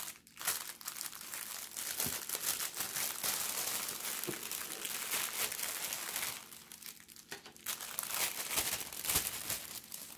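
Thin clear plastic packaging bag crinkling as it is pulled open by hand and slid off a rolled canvas and small kit bags. The crinkling is dense and continuous, easing briefly about two-thirds of the way through.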